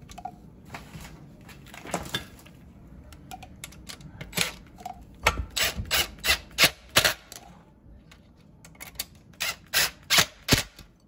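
Cordless DeWalt impact driver running in short bursts of sharp impacts as it tightens the screws on the disposal's drain-pipe flange. The impacts come in two runs, the first about halfway through and the second near the end, as the screws seat to make the joint watertight.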